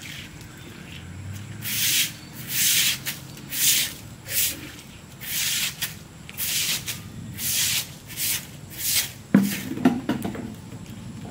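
Soft grass broom sweeping across a wet concrete floor in about ten short swishing strokes. A single sharp knock comes near the end.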